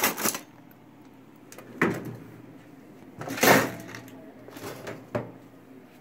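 Hands rummaging inside an opened sheet-metal computer case, likely going after its power switch. There are a few sharp knocks and clatters, with a longer scraping rattle about three and a half seconds in.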